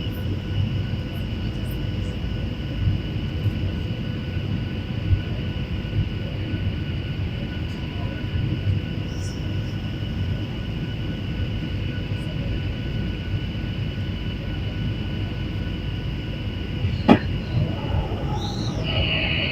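Airliner cabin noise on approach: a steady low rumble of engines and airflow with a faint steady whine over it. A single sharp click sounds about 17 seconds in, and a brief higher-pitched sound comes near the end.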